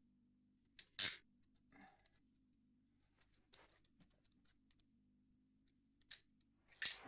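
A few sharp metallic clicks spaced seconds apart, with light jingling: handcuffs being snapped shut and ratcheted around the wrists.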